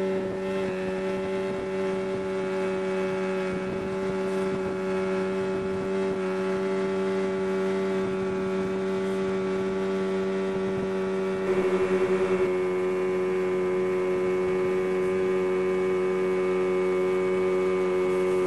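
Boat's outboard motor running at a steady speed, a constant droning hum, a little louder for a moment about twelve seconds in.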